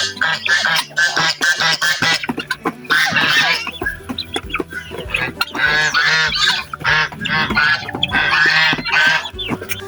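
Young poultry calling: many short, pitched chirps and cheeps in quick succession, several birds overlapping.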